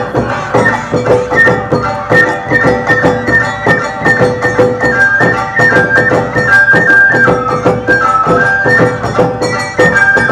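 Awa-odori festival music: a shinobue bamboo flute playing a stepping, repeating high melody over fast, steady percussion strikes.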